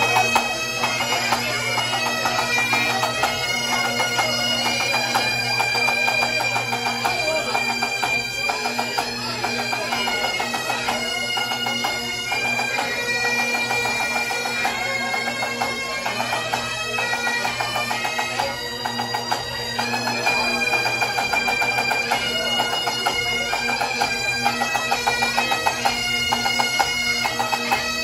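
Pipe band playing: Great Highland bagpipes sounding a tune in stepping held notes over their steady drones, with drums beneath.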